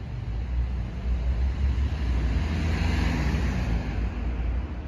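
Outdoor street noise: a steady low rumble of wind on the microphone under traffic, with a passing car that swells and fades about halfway through.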